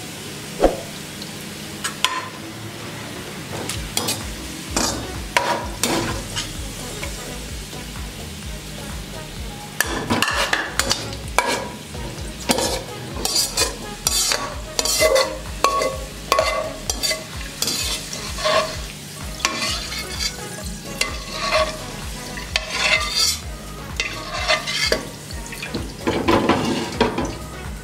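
Perforated steel skimmer scraping and knocking against a karahi as fried onions are scooped out of hot oil, which sizzles underneath. The scrapes and taps come thinly at first and thickly from about ten seconds in.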